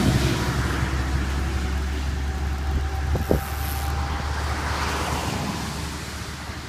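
Wind buffeting a phone microphone outdoors, a steady low rumble, with one brief sharp sound about three seconds in.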